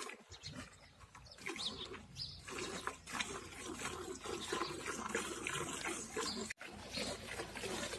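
Hand milking into a steel bucket: streams of milk squirting into the pail in a quick, rough rhythm as the teats are squeezed in turn.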